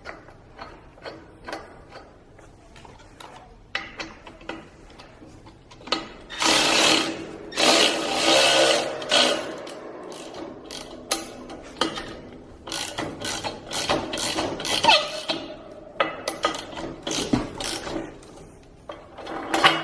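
Metal hand tools tightening a large Allen bolt on an exercise bike frame: a run of ratcheting clicks and metal clinks, with a louder, rasping stretch about six to nine seconds in.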